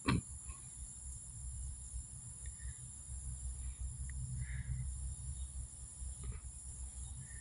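Steady high-pitched drone of an insect chorus, over a low rumble, with a few faint short chirps.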